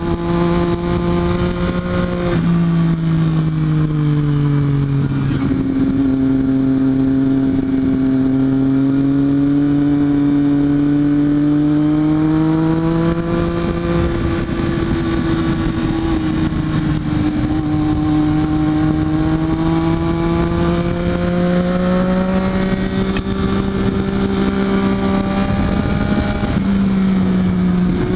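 Triumph Daytona 675R's three-cylinder engine running steadily, its pitch drifting slowly up and down over several seconds, with a few abrupt steps in pitch.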